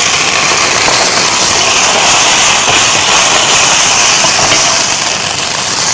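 Vegetables (broccoli, cauliflower, shredded carrot) sizzling loudly in a very hot stainless pan over high heat, with a splash of water just added turning to steam. It is a steady, even hiss.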